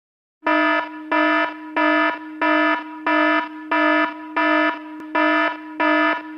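Electronic buzzer-alarm tone pulsing loud about one and a half times a second at the same low, buzzy pitch, starting about half a second in.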